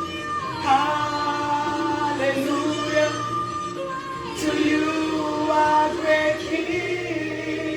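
Christian worship song: voices singing long held notes over backing music.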